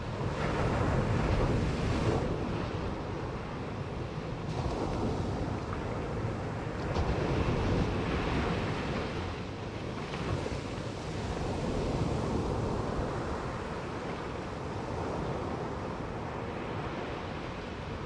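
Ocean surf breaking and washing up a sand beach, splashing against rocks at the water's edge. It surges louder every few seconds as each wave comes in.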